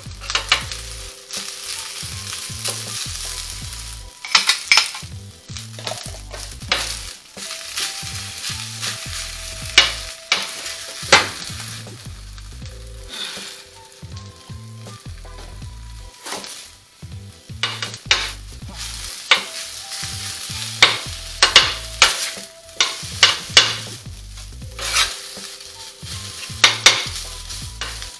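Fried rice sizzling on a flat-top griddle, with a metal spatula scraping and clacking against the hot steel in irregular bursts as the rice is stirred and chopped.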